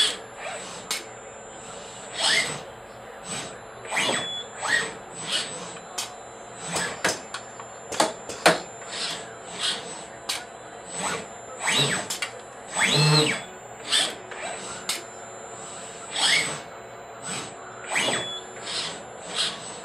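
FANUC LR Mate 200iD robot arm running an automated pick-and-place cycle. Its servo motors whine, rising and falling in pitch as the arm speeds up and stops, mixed with frequent short clicks and air hisses from the grippers and clamps, about one or two a second.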